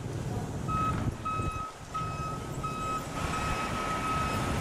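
A truck's reversing alarm beeping steadily, about a beep and a half per second, starting under a second in, over a low rumble of engine and wind noise.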